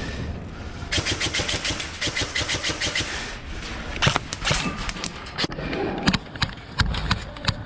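Airsoft gun firing a full-auto burst of a little over two seconds, about nine shots a second, followed by scattered single sharp snaps.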